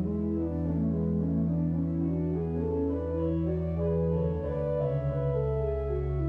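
Church organ playing slow sustained chords over a held bass note, with the harmony changing about four and a half seconds in.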